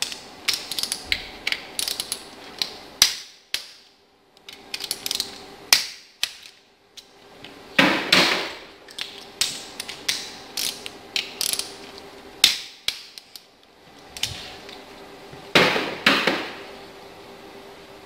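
Ratchet wrench clicking in short irregular runs while the upper timing chain guide bolts are done up, with two longer, louder rasping bursts about eight and sixteen seconds in.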